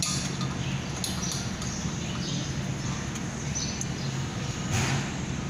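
Steady low mechanical hum with birds chirping in the background, and one sharp knock about five seconds in as the refrigerant tank is handled.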